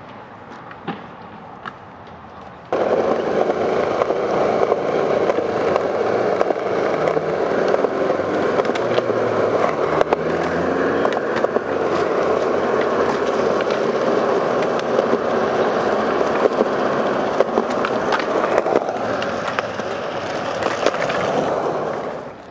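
Skateboard wheels rolling over concrete: a steady rolling roar that starts suddenly about three seconds in, with sharp clicks as the wheels cross joints and bumps. It dies down near the end.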